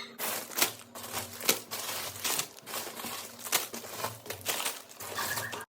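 Crinkling and rustling with irregular sharp clicks, as of something crinkly being handled; it cuts off abruptly near the end.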